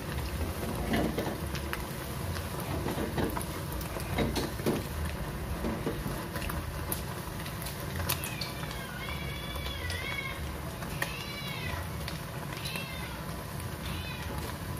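Egg omelet frying in hot oil in a small pot, a steady sizzle, with a cat meowing about five times in the second half.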